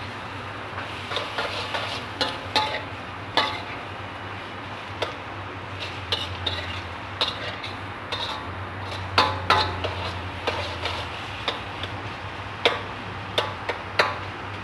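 Metal spatula stirring sliced vegetables in a large iron wok, scraping and clinking against the metal with irregular sharp clicks, over a steady low hiss.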